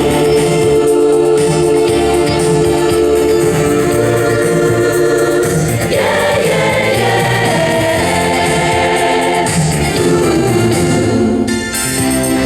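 Music: held choir-like chords over an organ-like sound.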